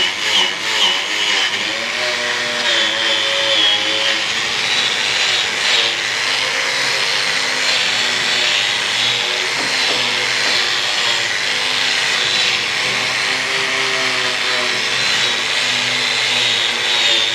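Corded electric angle grinder with a wire brush wheel running continuously against rusted sheet steel, scouring off rust, its pitch wavering a little.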